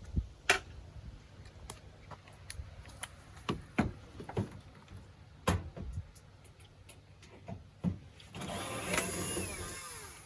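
Scattered sharp clicks and knocks, several in a row, then near the end about two seconds of scraping with a falling squeal in it.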